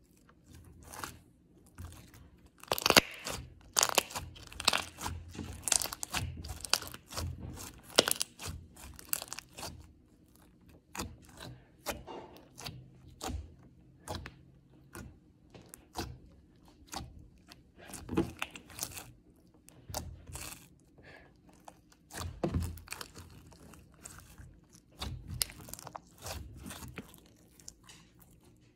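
Translucent pink glitter slime being squeezed, poked and stretched by hand, giving a fast, irregular run of crackling pops and clicks. The clicking is densest in the first third and again toward the end, sparser in the middle.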